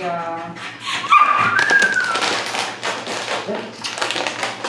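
A small terrier's short high-pitched whine about a second in, rising and then falling. Around it, footsteps and the dog's claws tap and shuffle on the tiled floor.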